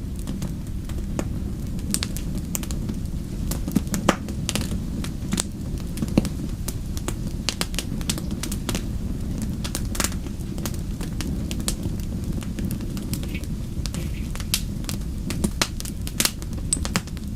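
Wood fire crackling and popping in irregular sharp snaps over a steady low rumble of the flames.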